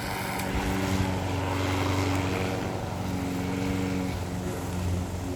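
Lawn mower engine running steadily with an even droning hum, mixed with the rush of gusty wind.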